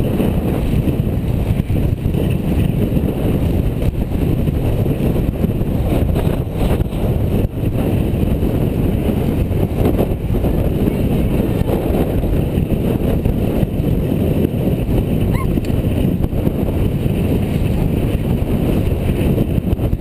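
Wind buffeting the microphone of a camera mounted on a road bike riding in a pack: a loud, steady low rumble.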